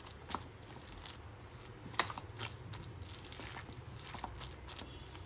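A hand squeezing and mixing a coarse, moist batter of ground chana dal and chopped onion in a ceramic bowl: soft crunching and squishing with scattered small clicks, one sharper click about two seconds in.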